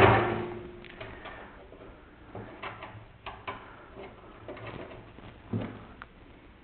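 A sharp metal clank at the start that rings briefly, then scattered light clicks and knocks as parts are handled inside an opened microwave oven's sheet-metal cabinet while a new magnetron tube is fitted.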